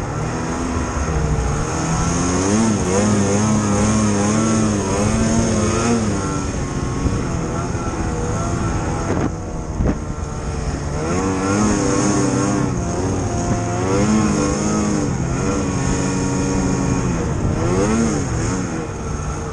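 Snowmobile engine under throttle while riding through deep powder snow, its pitch rising and falling as the rider works the throttle, easing off briefly about halfway through.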